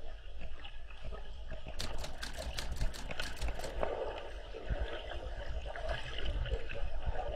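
Underwater sound in a swimming pool: a steady muffled rumble of moving water, with a run of sharp bubbling crackles about two to four seconds in as swimmers kick and release air.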